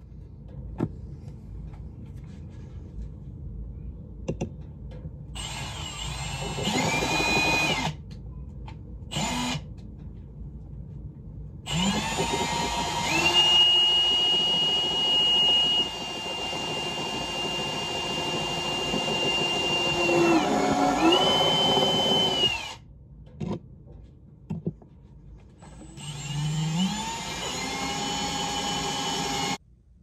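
Cordless drill running in four bursts, each rising in pitch as it spins up. The longest lasts about ten seconds and holds a steady whine, as holes are drilled through a plastic case.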